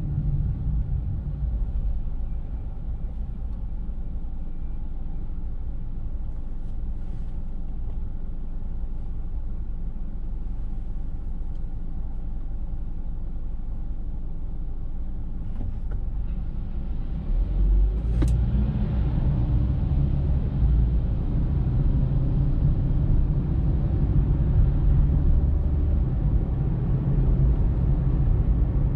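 Car on the move: a steady low rumble of engine and road noise. It eases off for a stretch, then grows louder about two-thirds of the way through, with a single sharp click just after it rises.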